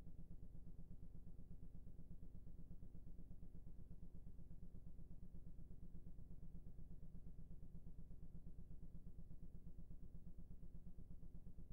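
Faint, steady low hum with nothing else standing out.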